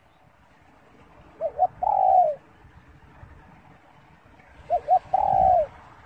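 Spotted dove cooing: two calls about three seconds apart, each two short coos followed by a longer coo that falls away at its end.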